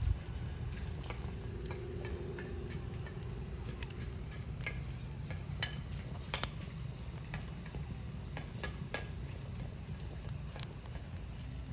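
Horseshoe crab grilling on a metal grate over an open fire: a steady low rush with scattered sharp crackles and pops of fire and sizzling, several close together about halfway through.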